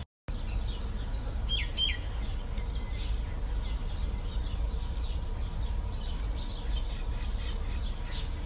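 Birds chirping: two quick falling chirps a little under two seconds in, and fainter chirps throughout, over a steady low rumble.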